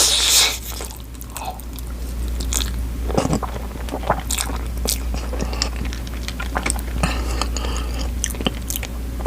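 Close-miked chewing of a big mouthful of spicy food: irregular wet mouth clicks and smacks, with a breathy rush of air in the first half-second. A low steady hum runs underneath.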